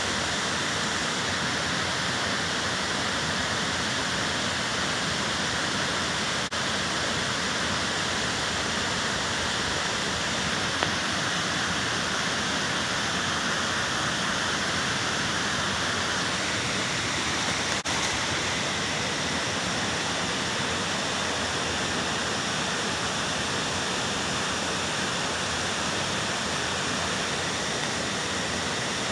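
Waterfall pouring: a steady rushing hiss with no change in level, broken by two faint clicks, one about six seconds in and one about eighteen seconds in.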